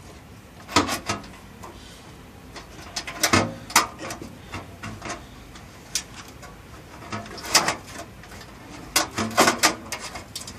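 Scattered clicks and knocks of a motherboard being handled and pushed into place inside a computer case by hand, coming in a few short clusters.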